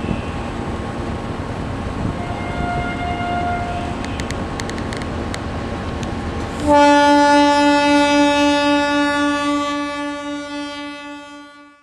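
Steady rumble of a moving train heard from on board, with a few clicks midway. Then, after an abrupt change, a long single-pitched train horn blast sounds for about five seconds and fades away.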